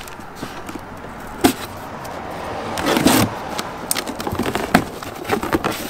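A knife slitting packing tape on a cardboard box, and the tape and flaps being pulled open: scraping, tearing and crackling, with a sharp click about one and a half seconds in and the loudest rasp around three seconds in.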